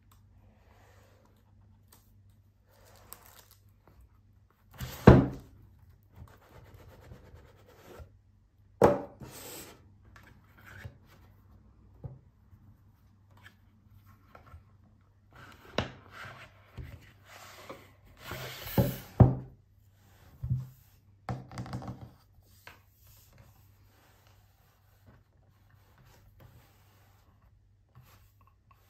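Cardboard watch packaging being handled on a wooden table: cardboard rubbing and sliding as boxes come out of their sleeves, with scattered thuds as they are set down. The loudest thud is about five seconds in, another comes near nine seconds, and a cluster of rubbing and knocks falls in the middle stretch.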